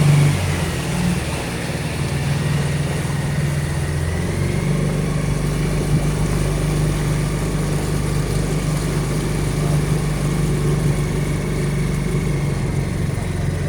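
A boat's engine running steadily at an even speed with a constant low drone.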